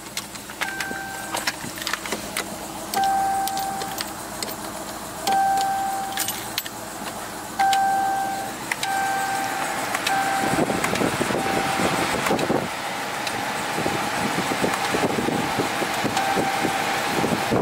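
A car sounds a series of short electronic beeps, all at one pitch and irregularly spaced. From about ten seconds in, a louder rough rushing noise rises underneath them.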